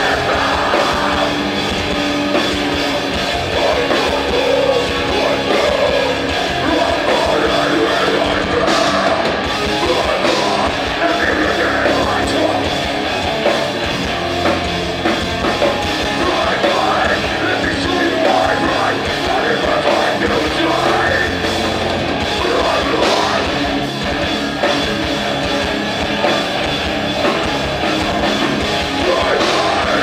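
A live punk band playing a song at full volume, with a drum kit and band instruments going without a break.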